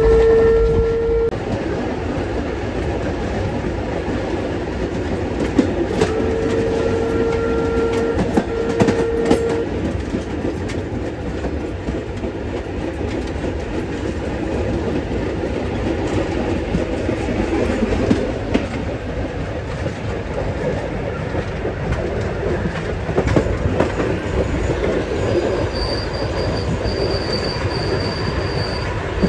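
Heritage passenger train under way: the coach rattles steadily over the rails with clickety-clack of the wheels on the joints. The locomotive whistle sounds twice, one short blast at the start and a longer one about six seconds in, and a faint high wheel squeal comes near the end.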